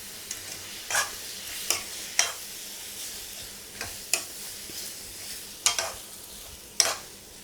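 Chicken pieces sizzling in butter in a hot kadai, with a spoon stirring them and scraping or clinking against the pan about seven times.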